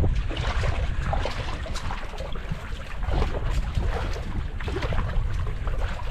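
Gusty wind buffeting the microphone with a constant low rumble, over water lapping and splashing in short irregular slaps.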